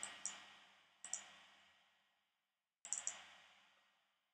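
Faint computer mouse clicks in small groups: two near the start, two about a second in, and three quick ones about three seconds in, each group trailed by a brief fading hiss.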